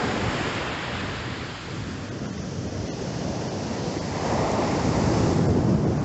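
North Sea surf washing on a sandy beach, with wind buffeting the microphone; the noise swells louder about four seconds in and eases near the end.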